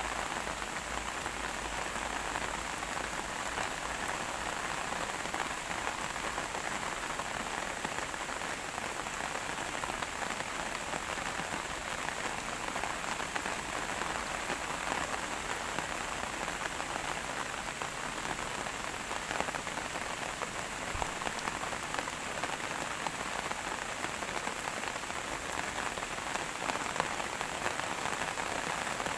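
Steady rain falling on a hard surface, a dense patter of drops.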